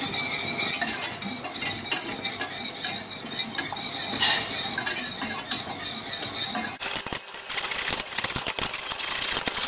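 Wire whisk scraping and clinking against the sides and bottom of a stainless-steel saucepan, beating pieces of butter one at a time into a cream and lemon sauce.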